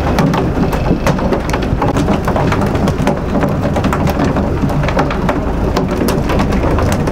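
Dense, steady crackling noise over a constant low rumble, the ambient sound aboard a boat at sea.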